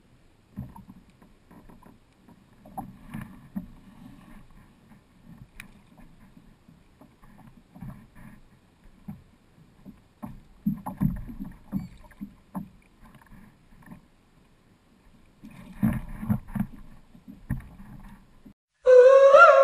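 Malibu Stealth 9 plastic kayak on the water: irregular low knocks and thumps against the hull, loudest about 11 and 16 seconds in. Music starts near the end.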